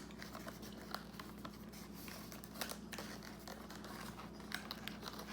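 Faint, irregular small clicks and light rustles of someone eating fast food and handling its paper and plastic packaging.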